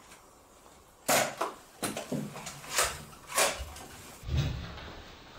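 A run of sharp plastic knocks and clacks, about six over two and a half seconds, as toy Nerf blasters are picked up and handled, with duller thuds near the end.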